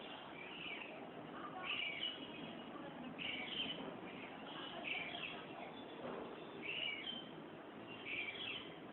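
A bird calling over and over: short high chirps repeating about once every second or two, over a faint steady background noise.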